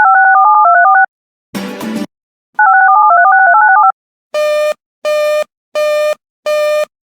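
Electronic alert tones from an Emergency Alert System style broadcast, leading in to the next bulletin. There are two quick runs of paired beeping tones that step in pitch like touch-tone dialing, split by a short burst of static, then five harsh buzzing beeps.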